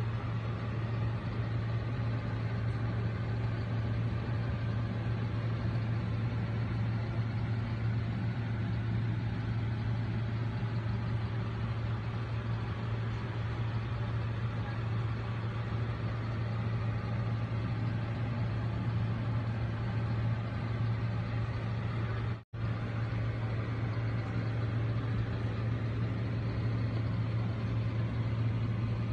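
A steady low mechanical hum, like an appliance or fan motor running, with no change in pitch. It cuts out for an instant about two-thirds of the way through.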